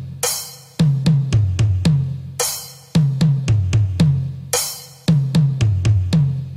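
A drum pattern repeating about every two seconds. Each cycle opens with a crash-like wash and is followed by about half a dozen deep, pitched drum strokes that step lower in pitch.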